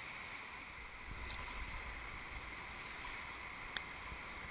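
Steady rush of whitewater rapids, with a single short click about three-quarters of the way through.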